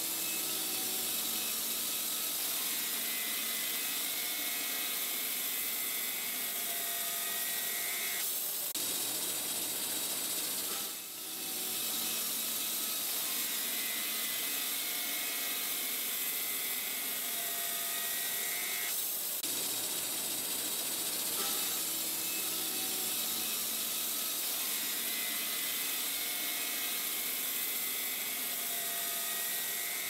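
Woodmizer LT40 band sawmill running and sawing a big oak log: a steady high hiss from the band blade and mill, with faint changing tones over it and a brief drop in loudness about eleven seconds in.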